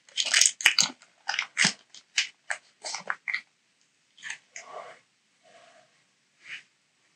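Digimon Card Game BT09 X Record foil booster pack crinkling as it is handled and opened by hand: a quick run of sharp crackles for about the first three seconds, then a few scattered, quieter rustles as the cards come out.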